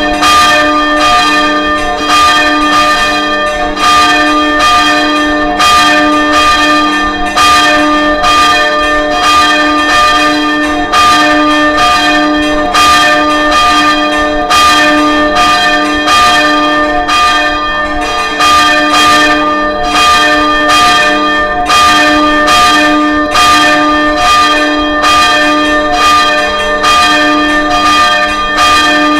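Church tower bells ringing loudly, struck in quick, steady succession, with the ringing of each stroke hanging on under the next.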